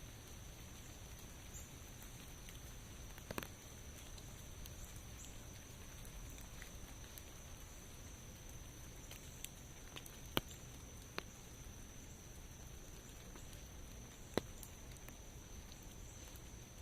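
Faint, steady rainfall with a constant high-pitched tone over it. Four sharp drip ticks stand out: one about three seconds in, two close together around the middle, and one near the end.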